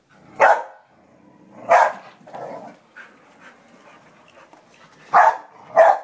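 A dog barking in single loud barks, one about half a second in and one near two seconds, a few softer ones after, then two in quick succession near the end.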